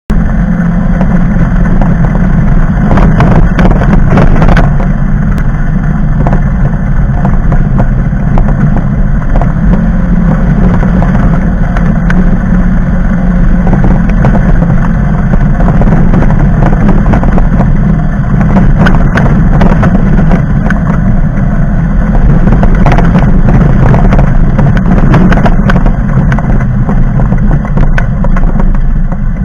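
An engine running steadily: a loud, constant low drone, with scattered light clicks and knocks over it.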